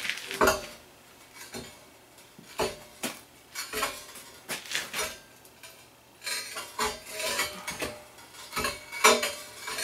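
Steel pedestal stand carrying a bench grinder being rocked and walked across a concrete floor: irregular metal clanks and scrapes from its base plate, coming more often in the second half.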